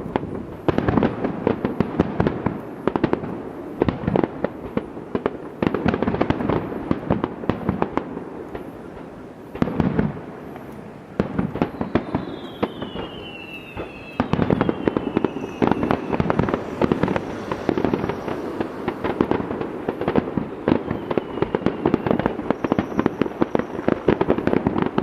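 Aerial fireworks going off in a rapid, almost unbroken barrage of bangs and crackling, easing briefly about a third of the way in. A few high descending whistles come about halfway through.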